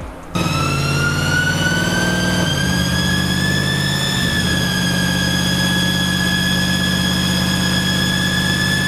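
Twin-turbo 392 Hemi V8 running with a loud turbo whistle over the engine's low drone. The whistle is a high whine that cuts in suddenly, rises slowly for the first few seconds, then holds steady.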